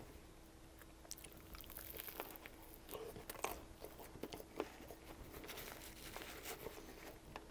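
Close-up chewing of a bite of Subway sandwich: soft, irregular crunches and mouth sounds, under a faint steady hum.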